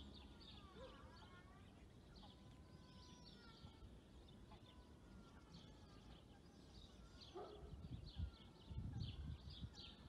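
Faint birdsong: many small birds chirping and calling, with a few low rumbles in the last couple of seconds.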